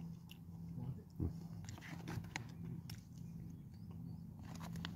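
A person chewing a spoonful of rice pudding, with small wet mouth clicks and a soft knock about a second in, over a faint steady low hum.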